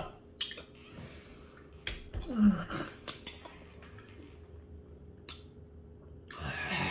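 Two men breathing and grimacing through an extremely sour candy: a few soft clicks, a short groan falling in pitch about two and a half seconds in, and a long breathy exhale near the end.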